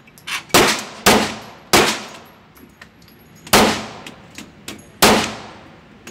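Semi-automatic pistol fired five times on an indoor range: three quick shots in the first two seconds, then two more about a second and a half apart. Each report rings off the range walls, with lighter clicks and clinks between shots.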